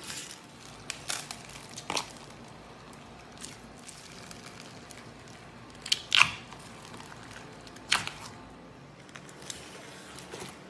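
Slime being pressed and squeezed by hand, giving scattered sharp clicks and pops, a double one about six seconds in.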